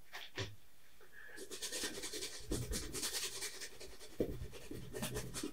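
Paintbrush scrubbing oil paint onto a canvas in quick, scratchy strokes. The brushing starts about a second in, after a couple of light knocks.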